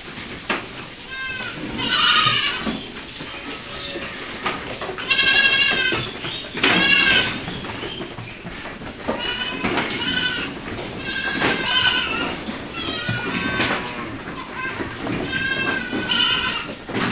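Goats bleating over and over, one high wavering call after another, the two loudest about five and seven seconds in.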